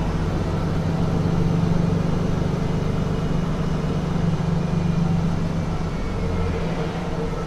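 Mercedes-Benz Citaro C2 city bus running steadily, its engine giving an even, low hum.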